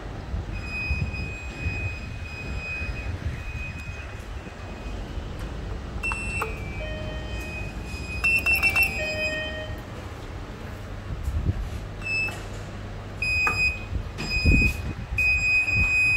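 EM traction lift being called and boarded: clicks and short electronic beeps around the hall call button press about halfway through, then a high beep repeating near the end as the car doors close, over a steady low rumble.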